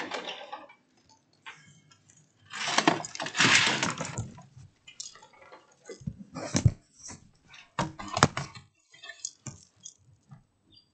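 Rattling and clattering as hanging vertical window blinds are pushed aside, with a few sharp knocks and clicks after.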